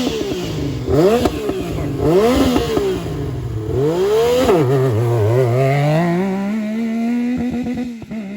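Yamaha YXZ1000R side-by-side's three-cylinder engine through a GYTR aftermarket exhaust, revving up and dropping back several times in quick succession, then pulling in a long, slow rise in pitch that levels off into a steady note. The exhaust note has a racy sound.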